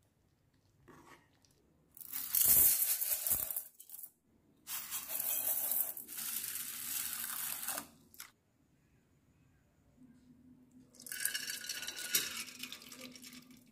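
Pouring in three bursts: water poured over split moong dal in a steel bowl, and near the end the washed dal tipped from the bowl into an aluminium pressure cooker.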